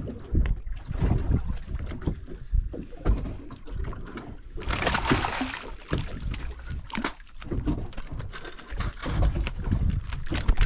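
Water sloshing and lapping against the side of a boat, with scattered knocks and a louder hissing rush starting about five seconds in.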